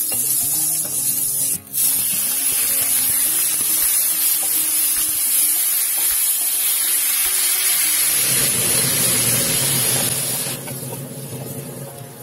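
Garlic and pechay (baby bok choy) sizzling loudly in hot oil in a wok as they are stir-fried with a wooden spatula. The sizzle breaks off briefly about a second and a half in, comes back strong, and dies down about two seconds before the end.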